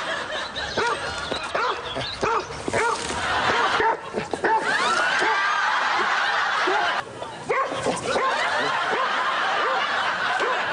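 Several dogs barking and yapping, overlapping with a studio audience laughing.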